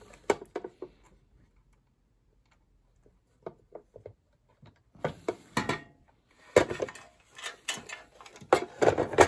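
Small clicks, knocks and rustles as the sandwich maker's wiring and parts are handled and pushed into place. A few clicks at first, almost quiet for a while, then busier handling in the last few seconds.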